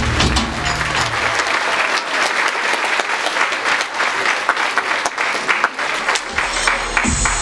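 Audience applauding, a dense patter of clapping. The dance music's low end stops about a second in, and the next track starts near the end.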